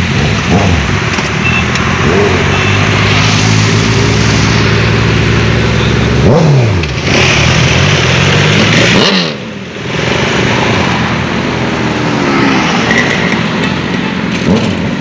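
Sport motorcycle engines running and revving as the bikes pull away, their pitch rising and falling with each rev, over the noise of passing road traffic. The sound drops away briefly about nine and a half seconds in.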